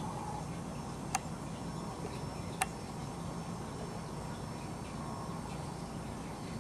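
Steady outdoor background noise with a low hum, broken by two sharp clicks about a second and a half apart.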